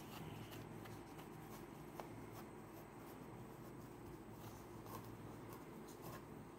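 A cotton rag rubbing polishing paste over a Honda CD 70 headlight lens: faint, scratchy scrubbing with a few small clicks, over a low steady hum.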